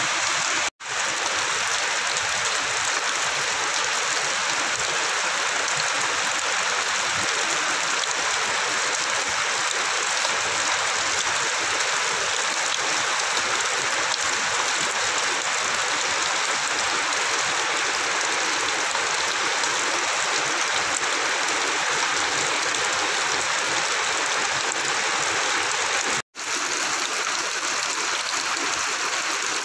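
Heavy rain pouring down steadily, splashing on a flooded concrete surface, with rainwater gushing from a drainpipe. The sound cuts out for a moment twice, about a second in and near the end.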